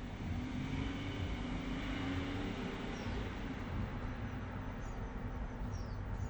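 Steady low traffic rumble with a vehicle passing, swelling over the first two or three seconds and then easing. A few short, faint high chirps from small birds come in the second half.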